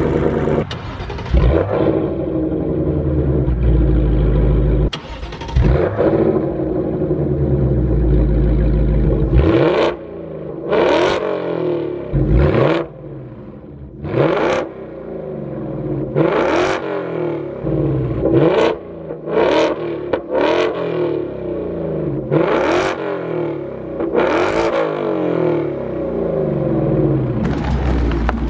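2024 Ford Mustang GT's 5.0 L V8 through a Corsa Xtreme active cat-back exhaust with a double H-pipe: a deep, steady idle for the first several seconds, then a string of quick free revs, each rising sharply and dropping back to idle.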